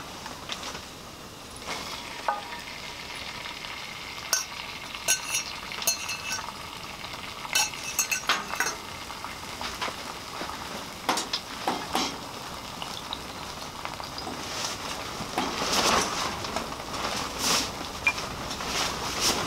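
Beaten eggs with green onion sizzling in melted butter in a frying pan, poured in at the start, with scattered sharp clicks. The sizzle grows louder in the last few seconds.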